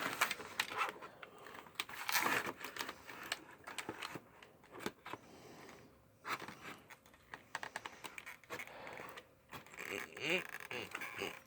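Irregular clicks, scrapes and rattles of a toy's cardboard-and-plastic packaging being handled as the toy is worked free of its box.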